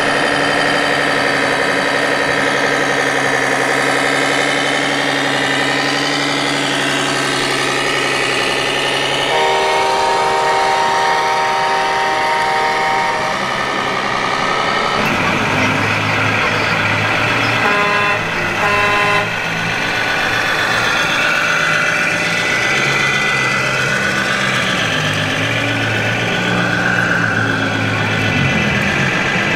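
Sound module of a 1/14-scale RC truck playing a simulated diesel engine that steps up and down in pitch. A long air-horn blast comes about nine seconds in and a few short horn toots around eighteen seconds.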